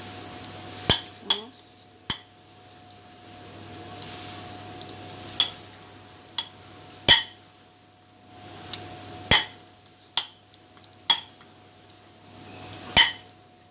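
A spoon knocking and scraping against a ceramic baking dish while spreading meat sauce: about a dozen sharp clinks at irregular intervals, with soft scraping and smearing between them.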